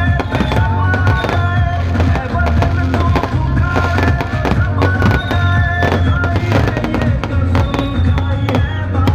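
Fireworks and firecrackers going off in rapid, irregular bangs and crackles, over music with a steady bass line.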